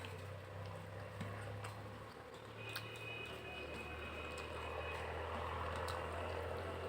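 Quiet eating sounds: scattered small clicks and soft wet noises of chewing and hand-mixing rice, over a steady low hum.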